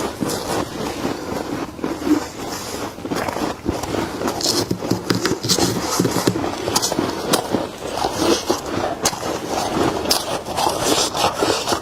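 Freezer frost being scraped up by hand and bitten and chewed: a dense, irregular run of crisp crunches and scrapes.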